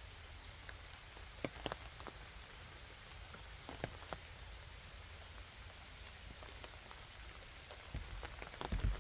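Rain falling on forest foliage: a steady light patter with scattered louder drips. A few low thumps come near the end.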